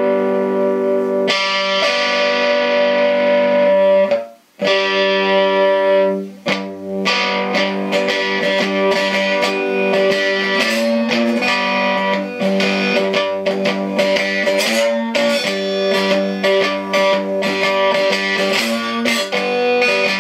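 Homemade scrapyard guitar tuned in G, strummed and picked: ringing chords that sustain between strums, with a short stop about four seconds in and another near six and a half seconds.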